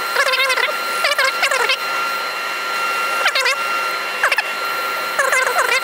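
A 240-grit sanding disc on a soft pad, spun by a wood lathe through a drill chuck, rubbing against the inside of a wooden bowl. About five short squealing scrapes, each falling in pitch, come each time the bowl is pressed onto the disc, over a steady machine whine.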